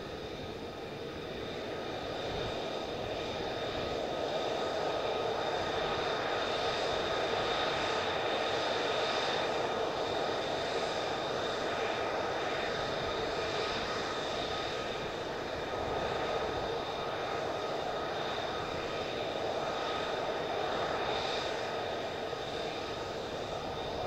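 F-35A Lightning II fighters' F135 turbofan engines running at taxi power: a steady jet whine with constant high tones over a rushing noise, growing a little louder about two seconds in.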